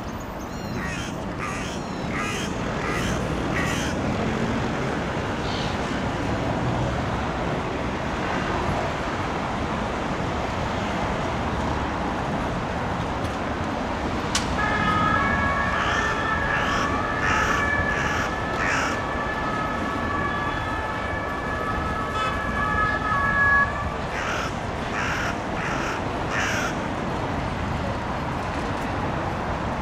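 Steady city traffic, with crows cawing in short runs of three or four calls, three times. About halfway through, a distant siren holds a steady two-note tone for roughly eight seconds.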